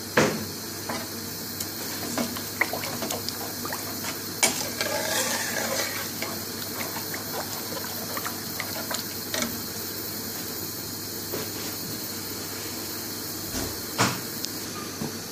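Red lentil dhal thinned with water bubbling in a metal pan while a metal spoon stirs it, sloshing the liquid, with scattered clinks of the spoon against the pan; the loudest knock comes near the end.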